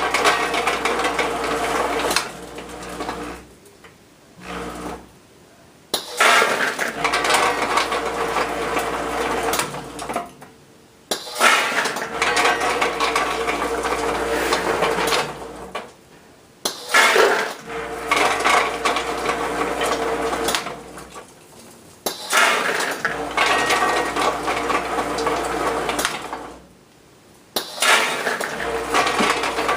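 Hard dog treats clattering and rattling as a Logical Machines Model S-4 weigh-fill machine feeds and dispenses them, in runs of several seconds separated by short pauses, with a low hum from the machine while each run goes.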